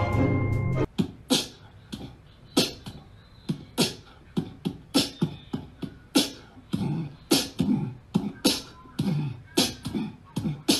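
Background music ends about a second in. A run of short, sharp percussive sounds follows, one or two a second at uneven spacing, some with a low thump, in the manner of beatboxing.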